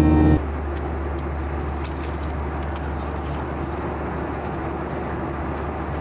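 Steady noise of a moving vehicle heard from inside: an even low rumble with a hiss over it, unchanging after a cut shortly after the start.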